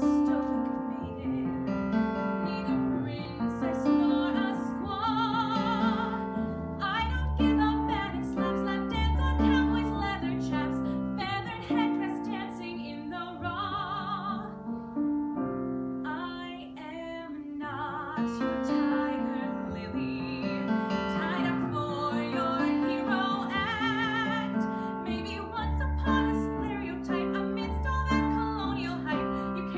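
A woman singing a musical theatre song with piano accompaniment, her held notes carrying a clear vibrato.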